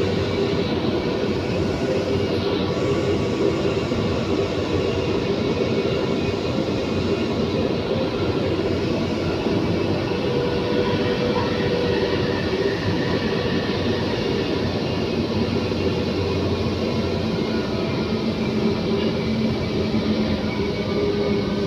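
Running noise inside a moving metro train car: a steady rumble of wheels on the track, with a few faint steady whining tones over it.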